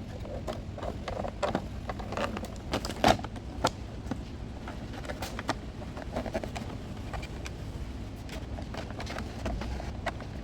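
Handling noises of repair work: irregular clicks and knocks over a steady low hum, with the loudest knock about three seconds in.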